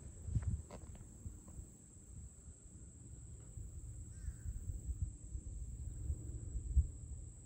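Outdoor roadside ambience: a gusty low rumble of wind on the microphone under a steady high insect drone, with a few light clicks in the first second and a brief bird chirp about four seconds in.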